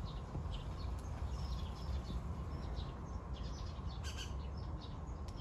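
Small birds chirping in quick short high notes, a little louder about four seconds in, over a steady low rumble.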